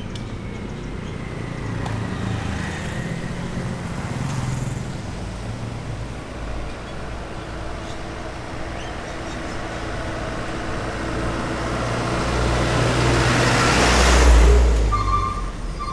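Road traffic: motor vehicles passing close by, with a low engine and tyre rumble; a first one goes by a few seconds in, and a louder one builds up and passes near the end.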